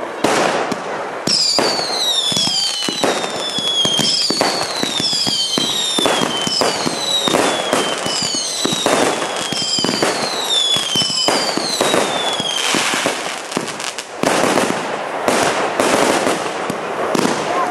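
Consumer firework barrage cake firing: a dense string of bangs and crackles. About a second in, a run of falling whistles begins, roughly one a second, and stops about two-thirds of the way through, leaving the bangs.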